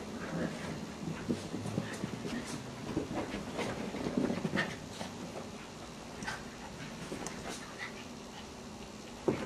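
Maltese puppies playing, giving short, scattered high yips and whimpers at irregular moments.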